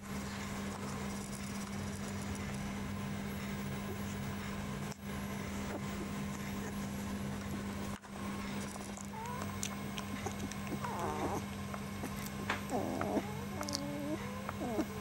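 A 19-day-old rough collie puppy whimpering and squeaking in short, wavering cries, starting about nine seconds in. A steady low hum runs underneath throughout.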